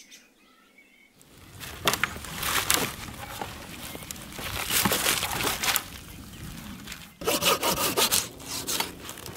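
Folding pruning saw cutting through a freshly cut branch, rasping stroke after stroke. Near silence for the first second; the strokes come quicker and louder from about seven seconds in.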